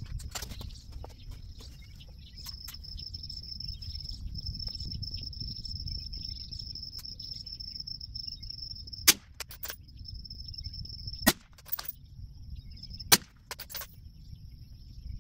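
Three suppressed rifle shots with M193 5.56 ammunition, about two seconds apart in the second half, each followed by a fainter click. Under them runs a steady high-pitched insect buzz.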